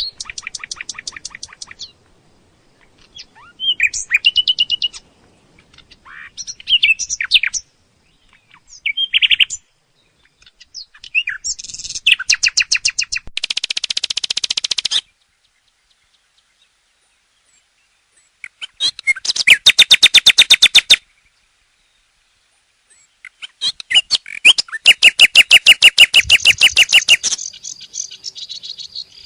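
Nightingale singing: a series of varied phrases separated by short pauses, many made of fast runs of repeated notes, others of brief whistles and chirps. The loudest phrases are long rapid rattling runs about two-thirds of the way through and again near the end.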